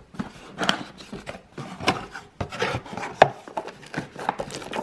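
Cardboard box being opened by hand: flaps and lid scraping and rubbing, with a series of sharp knocks and taps, the loudest about three seconds in.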